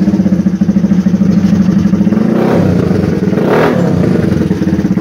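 Modified Honda CRF motorcycle's single-cylinder four-stroke engine running loud and fast through an aftermarket exhaust. About two and a half seconds in it is revved up once, rising to a peak and falling back, then the sound cuts off suddenly at the end.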